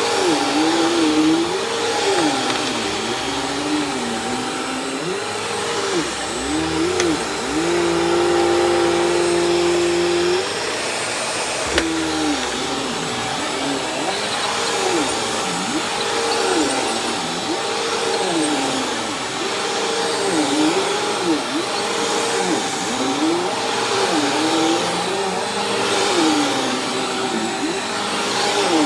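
Bissell CleanView 2254 upright vacuum running on thick carpet, its motor pitch dipping and recovering every second or two as it is pushed back and forth. Its tone holds steady for a few seconds in the first half, and there is one sharp click a little before the middle.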